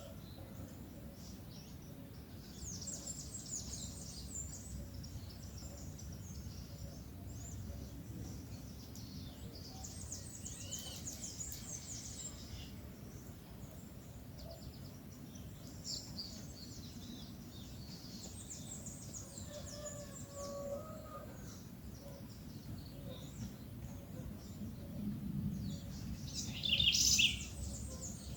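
Small birds chirping and calling in several short bouts of high notes, the loudest burst near the end, over a steady low background rumble.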